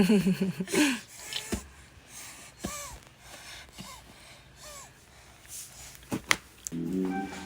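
A baby's wordless vocal sounds: a wavering cry-like sound at the start, then several short high squeaks with gasping breaths. A couple of sharp clicks follow, and music comes in near the end.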